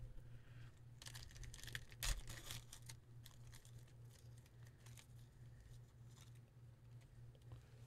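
Faint crinkling and rustling of a cellophane-wrapped trading card pack being handled, with a louder rustle about two seconds in, over a low steady hum.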